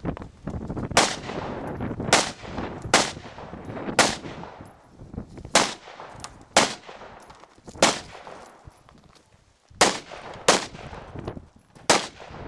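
AR-15-type carbine shots fired one at a time at an uneven pace, about ten over twelve seconds. The gaps vary from under a second to about two seconds, and each sharp crack is followed by a short echo.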